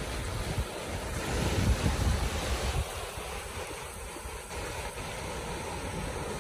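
Surf washing over a rocky reef shore, with wind gusting on the microphone. The surf swells louder about two seconds in, then eases.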